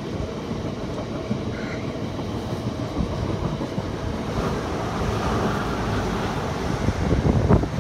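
Loaded freight train of open hopper wagons rolling by, a steady rumble of wheels on rail. About seven seconds in, a passenger train passing on the next track makes it louder.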